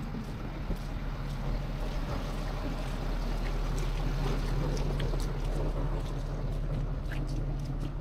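A vehicle engine running steadily with a low hum, under the light crunch and snap of footsteps on leaf litter and twigs.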